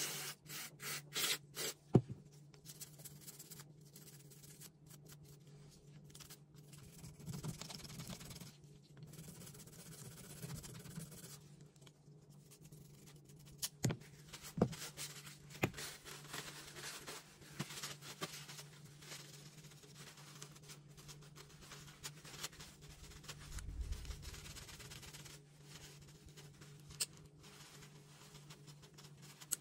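A few short hissing bursts from an aerosol gun-cleaner spray. Then a small brush scrubs and a paper towel rubs a small metal gun part, with a few light clicks of metal, over a low steady hum.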